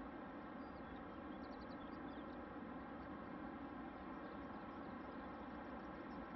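Quiet, steady outdoor rushing ambience, with a few short high bird chirps in a quick cluster about one and a half to two and a half seconds in, and fainter chirps later.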